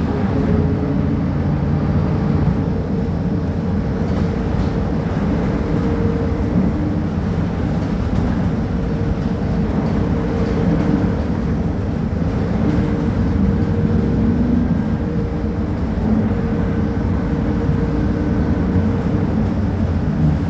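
Diesel engine of a Mercedes-Benz O500UA articulated bus running steadily, a low rumble with a held mid-pitched tone over it.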